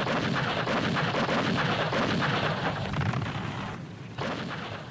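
Sustained din of an artillery barrage, a dense, continuous rumble of gunfire and explosions that breaks off briefly near the end and then goes on more quietly.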